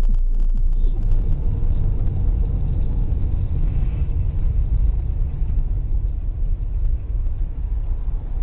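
Low, steady rumble of a car driving, engine and road noise.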